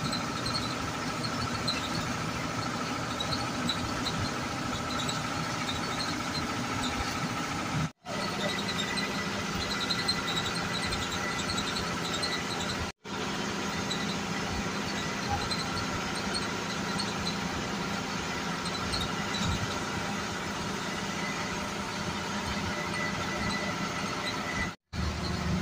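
Inside a moving passenger bus: steady engine and road noise with a constant high-pitched whine. The sound cuts out briefly three times.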